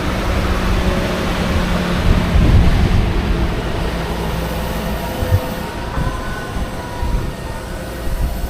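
Heavy diesel farm machinery running with a steady, heavy rumble and a clatter, with a higher whine coming in about six seconds in.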